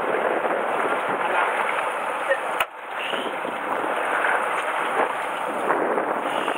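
Steady rushing noise of wind buffeting the microphone over open sea, with one sharp knock about two and a half seconds in.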